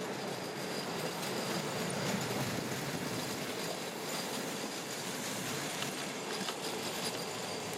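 Passenger coaches of a loco-hauled train rolling past and away, a steady noise of steel wheels running on the rails.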